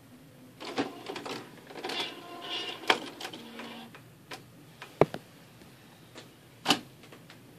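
HP OfficeJet Pro 8500 inkjet printer's mechanism running for about three seconds, a motor whir with clicking and clatter as the print-head carriage moves into position. It is followed by a few separate sharp plastic clicks.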